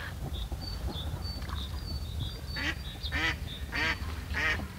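A duck quacking, a run of four short nasal calls about half a second apart starting halfway through, over a steady low rumble, with faint high chirps earlier on.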